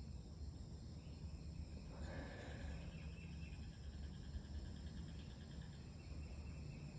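Insects trilling in short runs of rapid pulses, over a steady low rumble of outdoor background noise, with a brief soft rushing sound about two seconds in.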